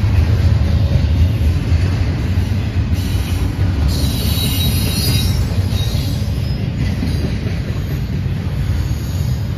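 Double-stack intermodal freight train's well cars rolling past, with a steady low rumble of steel wheels on rail. A brief high squeal from the wheels comes about four seconds in.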